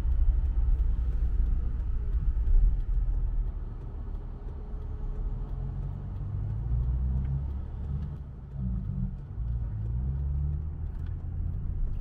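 Low rumble of a car's engine and road noise heard from inside the cabin as it drives. The engine note wavers up and down in pitch in the second half.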